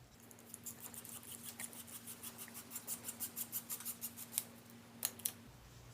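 Light, rapid metallic ticking, about six clicks a second and growing louder, then two sharper clicks about five seconds in, over a faint steady hum.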